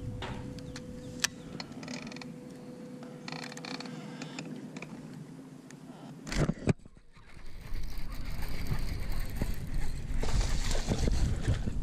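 Baitcasting reel clicking and whirring as a lure is cast and worked. After a brief loud burst about six seconds in, a steadier, louder rush of wind and water comes in, with the reel cranked against a hooked bass on a bent rod.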